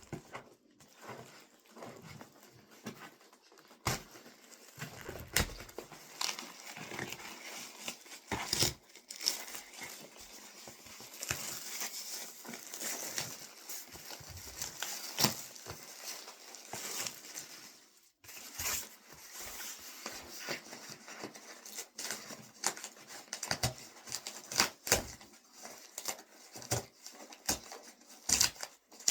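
Parcel packaging being handled and opened by hand: crinkling and tearing with irregular rustles and sharp clicks, the rustling heaviest in the middle.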